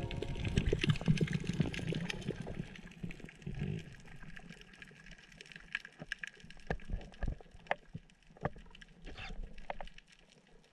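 Underwater sound through a GoPro's waterproof housing: a low rumbling wash of moving water for the first few seconds, dying away, then scattered sharp clicks and ticks.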